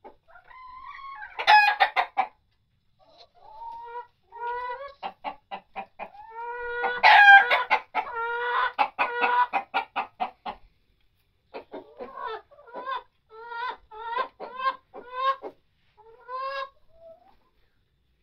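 A flock of red laying hens clucking in runs of short, quick calls, several a second, with the loudest calls about a second and a half and seven seconds in.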